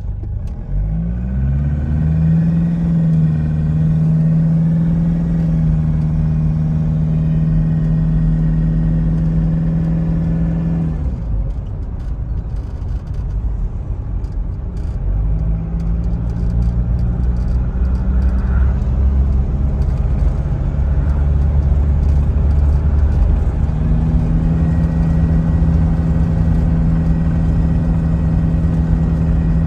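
1995 Toyota HiAce KZH106's 1KZ-TE turbodiesel engine heard from inside the cab while driving, over a steady low road rumble. The engine note climbs in the first couple of seconds and holds, fades away about eleven seconds in, then comes back around fifteen seconds. Near twenty-four seconds it drops to a lower pitch and holds steady.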